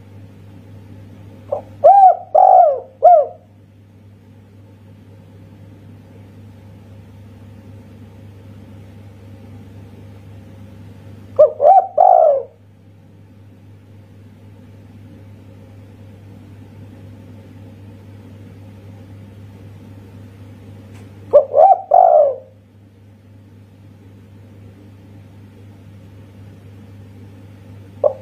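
A spotted dove (tekukur) cooing: three short phrases of a few notes each, about ten seconds apart, in the call type Indonesian keepers call 'kuk satu'. A steady low hum runs underneath.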